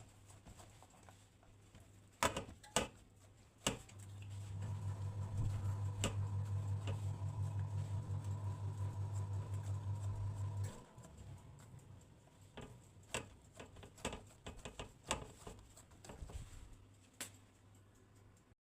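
A small electric motor hums steadily for about six seconds with a fast pulsing, then cuts off suddenly; scattered clicks and knocks come before and after it.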